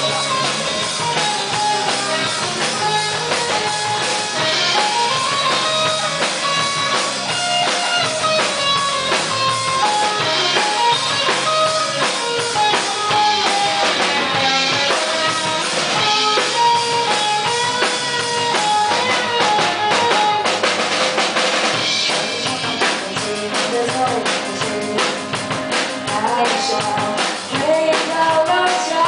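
Live rock band playing an instrumental passage between sung lines: electric guitars carrying a melody over bass and a drum kit. The drumming gets busier in the last few seconds.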